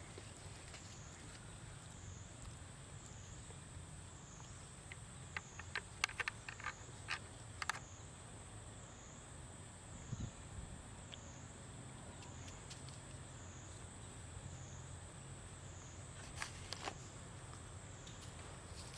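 A high insect drone that wavers up and down about once a second, over a low hum, with scattered faint clicks and rustles about six to eight seconds in and again near the end.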